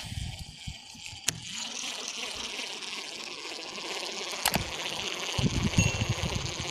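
Rushing floodwater of a swollen river, a steady hiss, with two sharp clicks and some low knocks in the later part.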